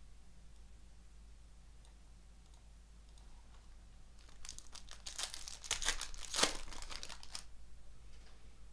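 Trading-card pack wrapper crinkling and tearing for about three seconds midway, after a few seconds of quiet handling.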